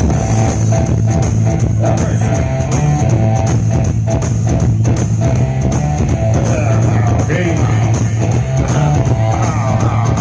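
Loud dance music played through a sonido's sound system, with a steady beat and a strong bass line, and a wavering melody line coming in over it in the second half.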